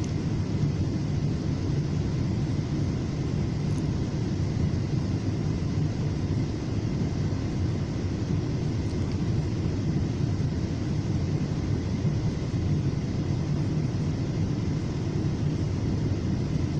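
Steady low rumble of a FrontRunner commuter train in motion, heard from inside a passenger coach.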